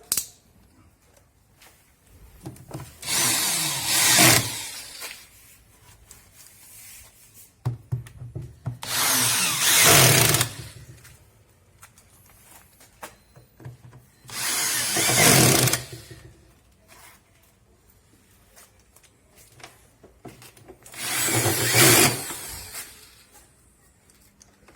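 Power drill driving bolts back in, running in four separate bursts of about one and a half to two seconds each, with small clicks and knocks between them.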